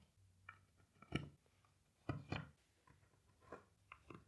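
Faint, scattered clicks and taps, about eight of them, as metal cam-lock furniture connectors are pushed by hand into the holes of solid pine boards.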